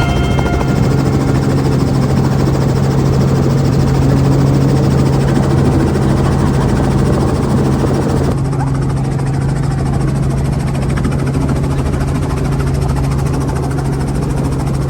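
Helicopter engine and rotor running steadily, a loud even drone with a strong low hum. About 8 seconds in, the hiss higher up drops away suddenly while the low hum carries on.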